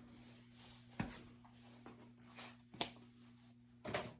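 A few light, sharp clicks and knocks from tools and wood being handled during drawer-front fitting, spaced about a second apart, over a steady low electrical hum.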